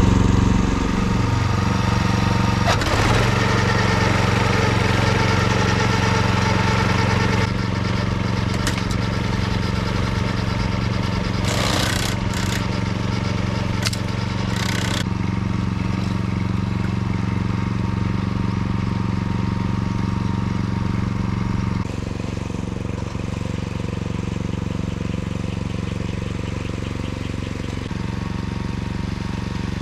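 Kioritz Wing Mower AZ646 walk-behind levee mower running steadily while cutting grass. A few short sharp noises come midway, and the sound drops a little quieter about two thirds of the way in.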